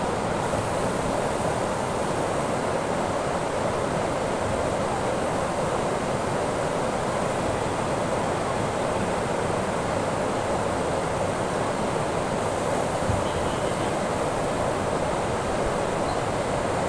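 Steady rushing of a river, an even wash of water noise that neither swells nor breaks.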